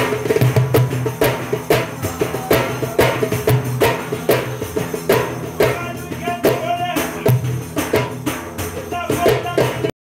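Def frame drum beaten by hand in a driving rhythm of a few strokes a second, each stroke with a bright rattling edge. A voice sings out over the drumming about six seconds in, and the sound cuts off suddenly just before the end.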